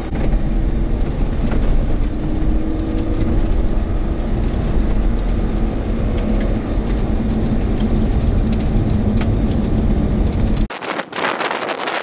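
Steady low rumble of road and engine noise inside a moving car. About eleven seconds in it cuts off abruptly and gusty wind buffeting the microphone takes over.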